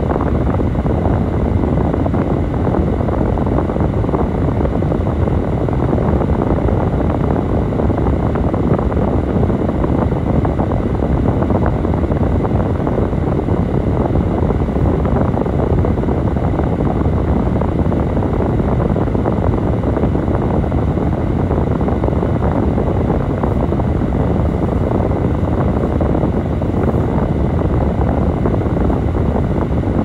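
Steady low rumble of a car driving slowly over a snow-covered road, heard from inside the cabin.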